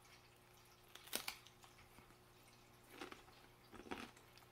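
Faint crunches of a person biting into and chewing a Finn Crisp multigrain sourdough rye thin: one sharp crunch about a second in, then softer crunches around three and four seconds.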